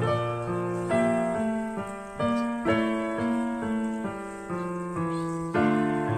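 Background piano music playing slow chords, with a new chord struck about every second.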